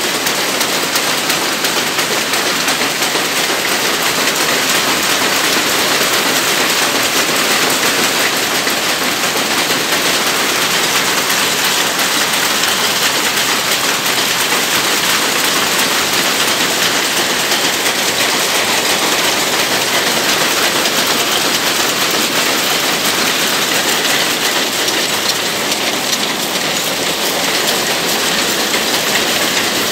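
Rapier looms running at full speed: a loud, dense, fast clatter that holds steady without a break.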